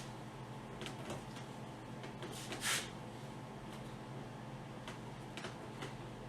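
Small plastic clicks and a brief rustle about two and a half seconds in, from handling two-piece push-pin fasteners while fitting a windshield bag, over a steady low hum.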